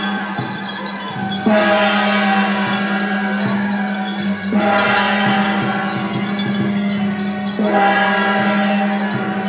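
A gong struck three times, about three seconds apart, each stroke ringing on and fading, over a steady low hum.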